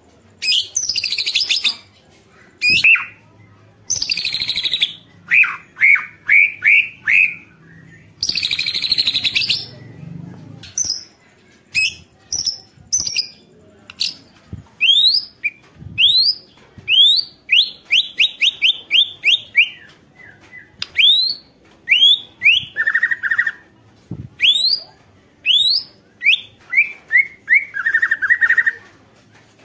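White-rumped shama (murai batu) singing loudly and continuously. The first ten seconds are broken by several harsh rasping rattles, the agitated 'ketrek' notes; after that come fast runs of sharp rising whistled notes.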